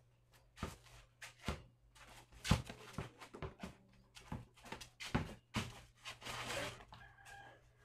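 Basketball bouncing on concrete with sneaker steps during one-on-one play: a string of short, sharp thuds, irregular at about one or two a second, with a brief scuffing shuffle about six seconds in.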